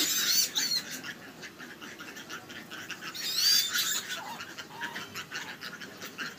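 Free-range native chickens, with chicks peeping in short, high, repeated calls at the start and again about three seconds in, and a lower call from a bird a little later.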